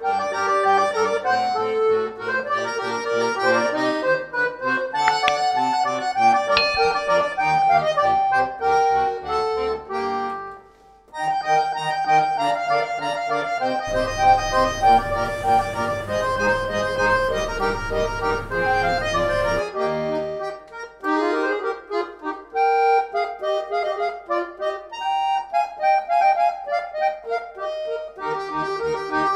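Background instrumental music carrying a melody, with a brief pause about a third of the way in and a low hum and hiss under it in the middle.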